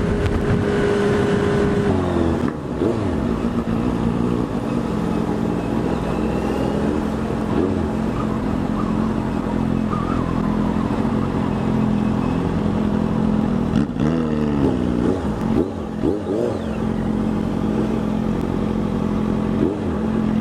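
Honda CB650F inline-four engine under way, its steady note falling about two seconds in, then rising and falling again several times through throttle and gear changes.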